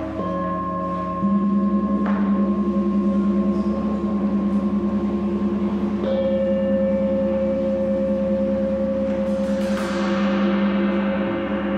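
Tibetan singing bowls struck one after another, their long ringing tones overlapping and pulsing. Near the end a large gong swells in with a bright shimmering wash.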